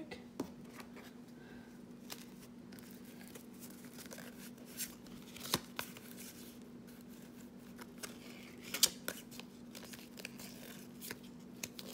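Cardboard football trading cards being flipped through one at a time in the hands: soft sliding with scattered sharp snaps and taps of card edges, the loudest about halfway through and again near the end, over a faint steady hum.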